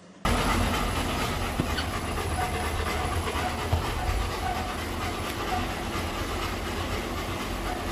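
Home treadmill running, a steady whirr of motor and belt with a low rumble, starting abruptly about a quarter second in.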